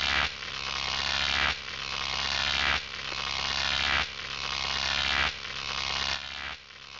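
Synthetic buzzing sound effect for an animated logo outro. It repeats about every second and a quarter: each swell builds, then cuts off abruptly, over a steady low hum.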